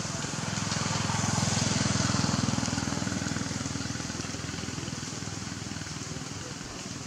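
A motor vehicle's engine passing by: a low engine sound that swells over the first two seconds and then slowly fades, over a steady outdoor hiss.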